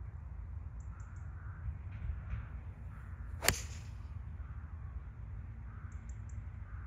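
A golf iron strikes a ball off a driving-range mat: one sharp crack about three and a half seconds in, followed by a short fading hiss.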